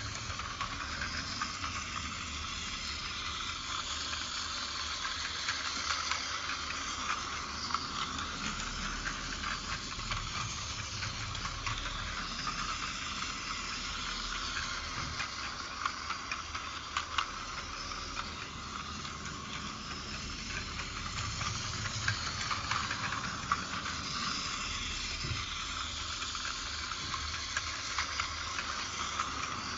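Battery-powered Plarail toy train running on plastic track: a steady high whirr from its small motor and gears, with scattered light clicks from the wheels on the track.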